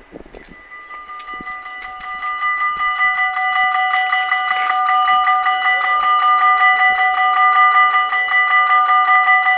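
Dutch level-crossing warning bells ringing in a fast, even, continuous clatter. They start just after the beginning, swell over the first couple of seconds and then hold steady. The ringing is the crossing's signal that a train is approaching as the barriers come down.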